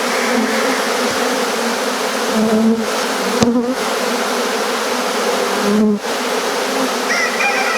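Honeybee swarm in flight: the loud, steady drone of many bees at once, with single bees' buzzes wavering up and down in pitch as they pass.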